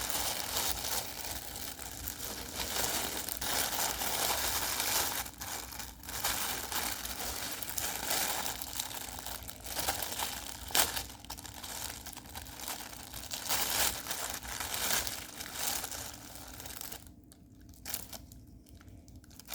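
Plastic packaging crinkling and tearing as a mailed package is opened and unwrapped by hand, with scattered sharp crackles; the rustling falls much quieter for the last couple of seconds.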